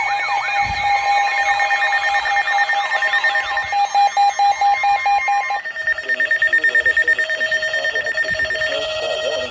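Electronic emergency-alert tones overlapping. Siren-like wails sweep up and down and fade out about three seconds in while a steady tone beeps rapidly. About halfway through, a different pulsing alarm tone takes over, the attention signal ahead of a Snow Squall Warning.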